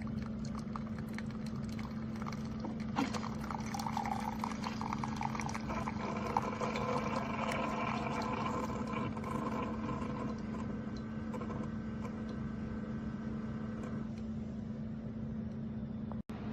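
Keurig K-Slim single-serve pod coffee maker brewing: a steady hum under coffee streaming into the cup. The stream stops about two seconds before the end.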